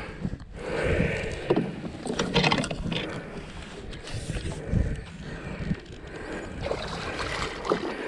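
Water splashing and scuffling, uneven bursts and knocks, as a large channel catfish is fought close in on rod and reel.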